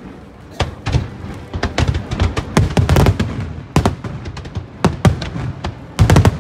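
Aerial fireworks shells bursting in quick, irregular succession: sharp bangs over deep booms, few at the start and coming thick and fast near the end.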